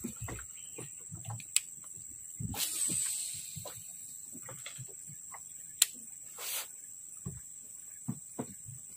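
A cast with a baitcasting rod and reel: a hissing whir as line pays off the spool about two and a half seconds in, then scattered clicks and taps of the reel being handled and wound, with a sharp click a little before six seconds.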